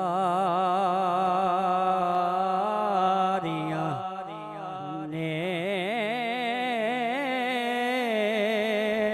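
Male naat reciter singing a long, drawn-out melismatic line with wide vibrato over a steady low drone. The phrase breaks off about three and a half seconds in, and a new, brighter held phrase begins about five seconds in.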